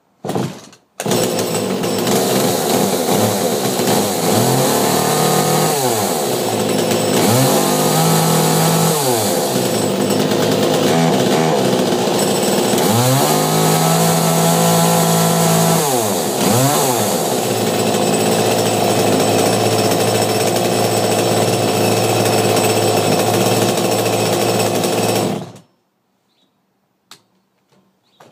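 Echo chainsaw started with a short burst, catching about a second in. It runs steadily and is revved up and back down several times, then cuts off abruptly near the end.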